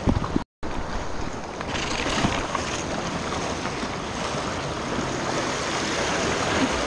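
Wind on the microphone and choppy sea water washing against jetty rocks, a steady rush of noise that cuts out completely for a split second about half a second in.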